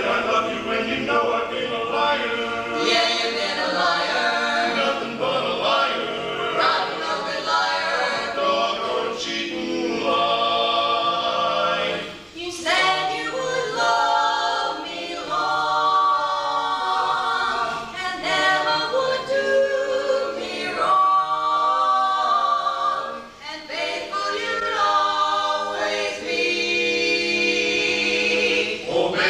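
Barbershop-style a cappella singing: several voices holding close-harmony chords in phrases, with short breaks between phrases.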